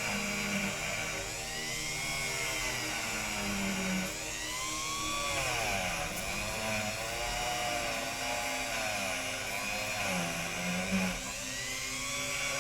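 Rotary wire brush spinning at high speed against toy wheels, a steady whir whose pitch dips and recovers again and again as the wheels are pressed to it.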